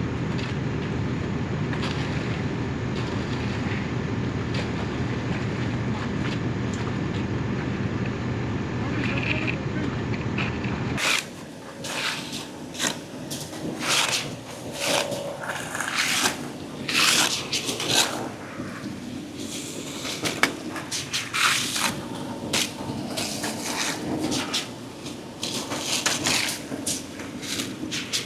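A heavy engine running with a steady low rumble. Then, after an abrupt cut, a run of irregular scrapes and knocks from hand tools and materials being worked.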